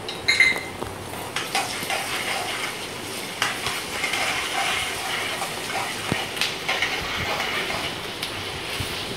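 Chopped onions and green chillies sizzling in hot oil in a metal kadai, while a steel ladle stirs them, scraping and clinking against the pan.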